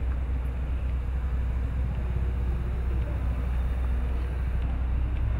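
Steady low outdoor rumble with faint distant voices.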